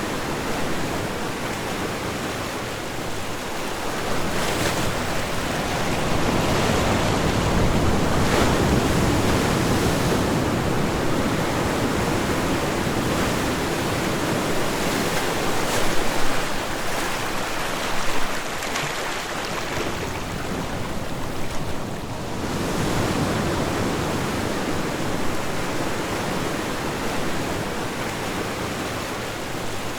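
Ocean waves washing onto a shore, a steady rushing that swells and eases over several seconds, with brief louder splashes about halfway through.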